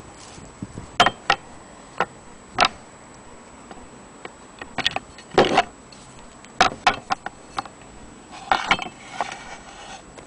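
Antique cast-iron sewing-machine hand crank knocking and clinking as it is handled against its wooden base: about a dozen irregular sharp taps, with a short rattle near the end.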